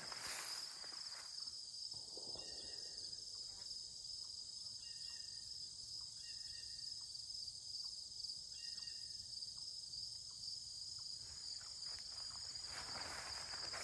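Steady high-pitched chorus of crickets in a late-summer meadow. Footsteps swishing through tall grass in the first second or so and again near the end.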